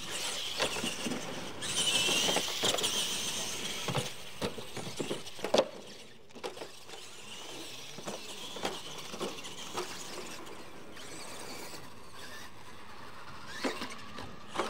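Radio-controlled monster trucks drag racing on dirt: their electric motors whine high, rising and falling with the throttle. Sharp knocks come as they hit and land off the ramps, the loudest about five and a half seconds in.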